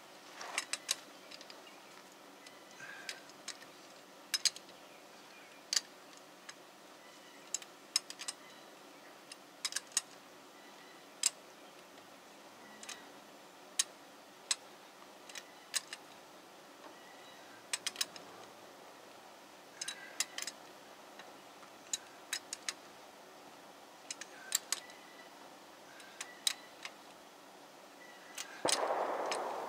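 Sharp metallic clicks, one every second or so and sometimes two close together, from a hand wrench working lug nuts onto a Jeep Cherokee's front wheel. A louder rushing noise rises about a second before the end.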